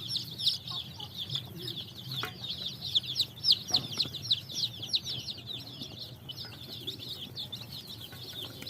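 A group of baby Javanese chicks peeping without pause: many high, short chirps, each falling in pitch, overlapping one another.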